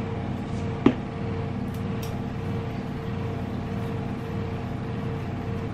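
Air conditioner running: a loud, steady hum with a held mid-pitched drone tone. One brief click about a second in.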